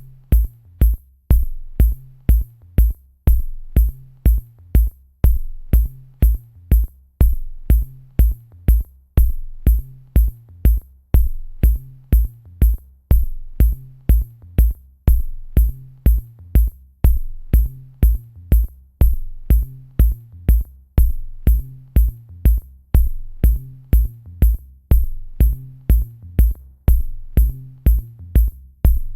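Electronic instrumental music: a drum-machine kick drum strikes about twice a second under a bass line that moves between notes, with crisp high clicks on the beat.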